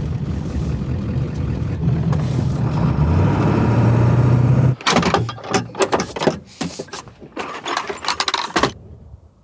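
1996 Ford F-350's 7.3 L Power Stroke diesel running while the truck drives, heard from inside the cab. After about four and a half seconds it cuts to a run of irregular knocks and crunches that stops abruptly near the end.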